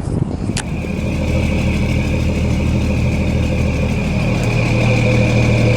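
An engine running steadily with a high whine. It starts after a click about half a second in and grows a little louder toward the end.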